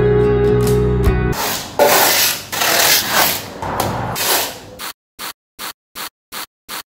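Slide-guitar music ends about a second in. Then come rubbing strokes of a cloth or pad on car paint, and then five quick, evenly spaced squirts of a hand trigger spray bottle.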